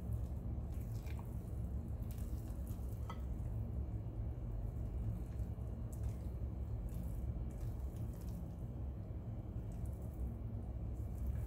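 Silicone spatula stirring thick, wet carrot cake batter in a glass bowl: soft, irregular squelches and scrapes over a steady low hum.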